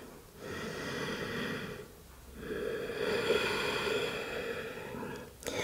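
A woman breathing slowly and audibly in a standing forward fold: long soft breaths of about one and a half to three seconds each, with short pauses between.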